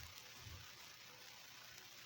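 Near silence: a faint steady hiss, with a soft low thump about half a second in.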